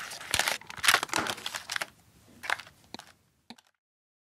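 Cardboard box of paint bottles handled in the hands: crackly rustling and scraping with sharp clicks for about two seconds, then a few separate taps and clicks. It cuts off abruptly about three and a half seconds in.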